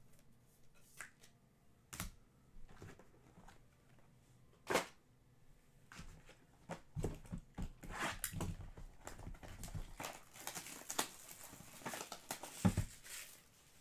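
Faint handling sounds of trading cards, plastic card holders and a cardboard card box: scattered clicks and taps, with a sharper knock about five seconds in and denser rustling and crinkling in the last few seconds.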